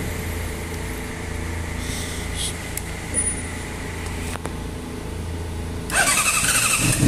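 Hot Honda CBR motorcycle engine is switched off and stops, leaving a steady hum from the electric radiator fan with a couple of clicks. About six seconds in, the starter motor cranks and the engine fires and runs again at the end. This is a hot restart that succeeds after a new crank position sensor was fitted, the cause of the bike failing to start when hot.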